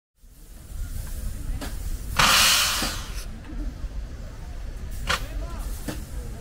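Outdoor ambience with a steady low rumble, broken by a loud hiss that lasts about a second from about two seconds in. Shorter hissing bursts come before it and again twice near the end.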